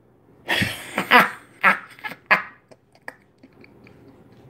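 A person's short, laugh-like vocal sounds in a few bursts in the first half, followed by a couple of faint clicks and low room noise.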